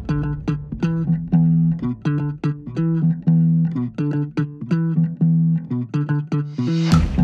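Background music: a steady rhythm of plucked guitar and bass notes, with a fuller, hissier sound coming in near the end.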